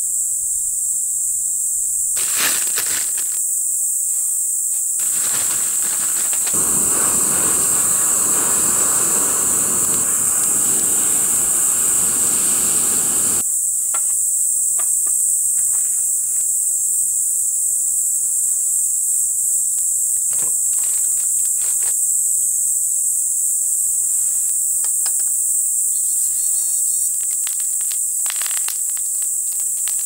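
Insects chirring in a steady, high, even drone. From about five to thirteen seconds in there is a stretch of rustling noise, and light clicks and knocks are scattered through.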